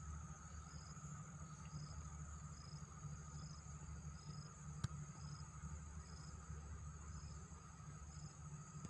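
Insects singing steadily in the trees, a continuous high shrill with a short chirp repeating a little more than once a second, over a low rumble. A single sharp click about five seconds in.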